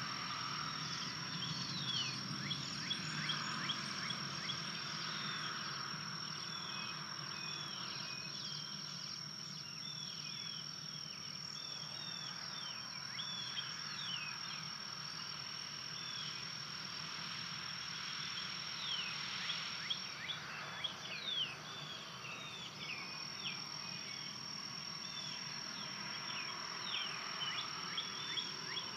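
Woodland ambience at a nest: a steady high-pitched insect trill that breaks off briefly about two-thirds of the way through, over many short chirps from songbirds singing.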